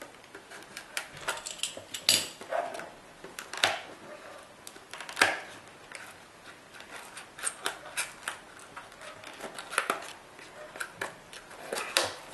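Cardboard retail box being opened by hand: a utility knife cuts through the seal, then the cardboard end flap is pried and pulled open. The sound is irregular scrapes, taps and clicks.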